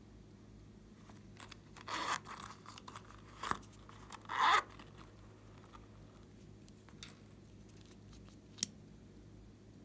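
Zipper of a small silicone coin purse being pulled in two short, scratchy runs, about two and four and a half seconds in. A single sharp click follows near the end.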